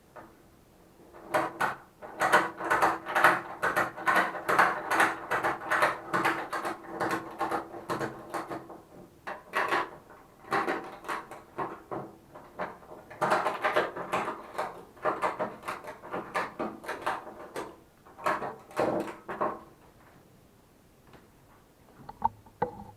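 Ratchet strap being cranked: quick repeated strokes of the ratchet handle, about two to three a second. They come in runs with short pauses, and a couple of separate knocks follow near the end.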